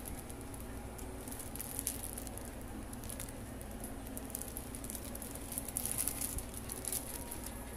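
Clear plastic wrapping crinkling and rustling as wrapped packs are handled and set into plastic baskets, louder about two seconds in and again around six seconds, over a steady low hum.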